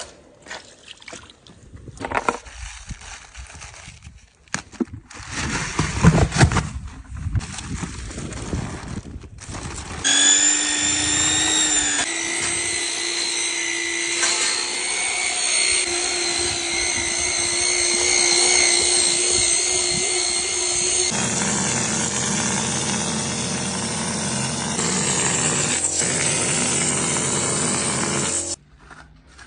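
Irregular knocks and scraping from hand work, then a power tool starting up about a third of the way in and running with a steady high whine. Its pitch shifts a few times as it works, and it cuts off just before the end.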